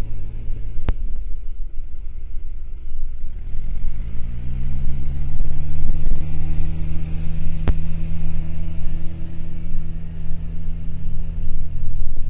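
Tractor diesel engines of a New Holland Mustang and a second tractor, hitched together for a tug-of-war. They run at a steady speed, rev up about four seconds in, and hold high revs. Two sharp clicks are heard, one near the start and one past the middle.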